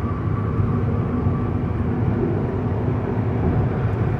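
Steady road and engine noise inside the cabin of a 2009 Mazda 5 at freeway speed, picking up from about 65 to 70 mph.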